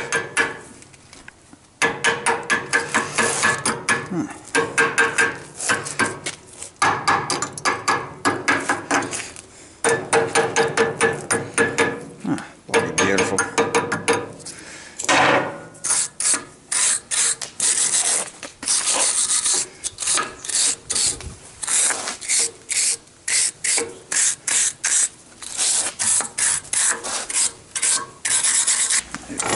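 Hammer striking a steel bar with welded-on bolts clamped in a vise: runs of rapid metal-on-metal blows, several a second, with a ringing clang, broken by a few short pauses.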